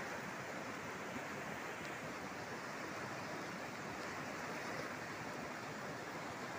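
Steady rush of a muddy river in flood, running fast and high over its banks.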